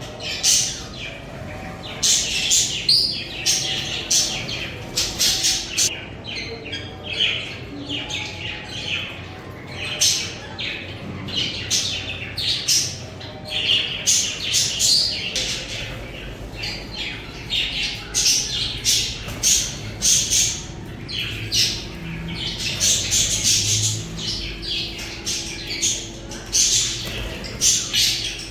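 Budgerigars chirping and squawking: many short, high calls and chattering trills in quick succession, with brief lulls.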